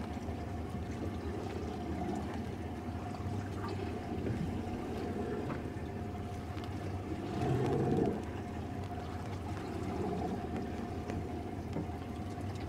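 Ambient sound aboard a small boat on open water: a steady low hum with water sloshing against the hull in a few soft swells, the strongest near the middle.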